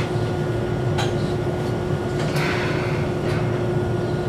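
Steady hum and low rumble inside a stopped Toyohashi Railway 780-type tram, with a few faint clicks and a brief knock a couple of seconds in.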